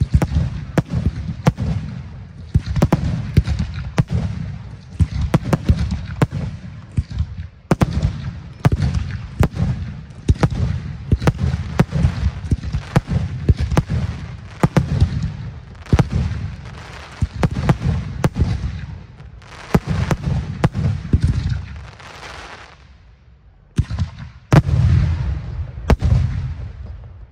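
Fireworks display: aerial shells bursting in a rapid, irregular series of sharp bangs, each followed by a low rumbling echo. The bangs thin out a few seconds before the end, then a last loud cluster goes off.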